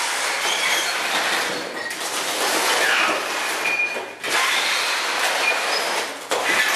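Smashed Sony CRT television's plastic cabinet scraping and grinding across a concrete floor strewn with broken glass as it is dragged and turned around, with faint squeaks. The scraping goes in two long stretches with a short break about four seconds in.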